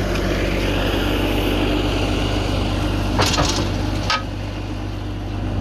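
Bobcat 773 skid steer's turbo-diesel engine running steadily, with two brief sharp noises a little past three and four seconds in.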